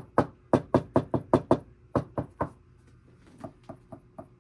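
Repeated knocking on a surface with no sound-deadening material, sharp, loud and ringing, about four knocks a second. After a short pause about three seconds in, the knocking resumes much fainter.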